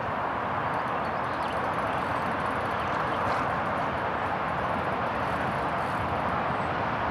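Steady wind noise in the lakeside trees and reeds, an even rushing hiss that does not change.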